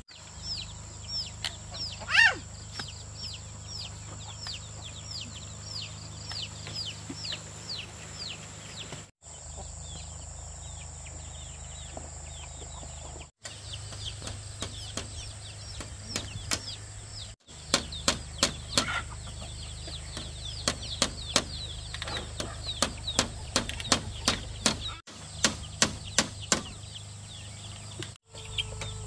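Chicks peeping: a series of short, high, falling chirps over a steady background hum. Later come quick runs of sharp knocks, and the sound drops out abruptly several times at edit cuts.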